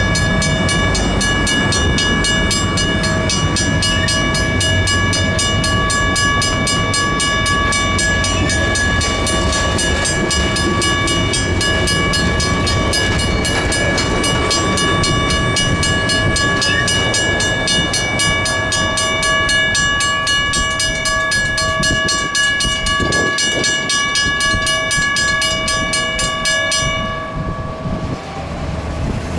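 Electromechanical railroad crossing bell ringing rapidly, its hammer striking the gong over and over, over the low rolling rumble of a passing passenger train. The bell stops abruptly near the end.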